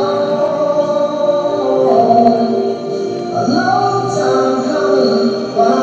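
Music: a slow song with voices singing long held notes, moving to a new note or chord every second or two.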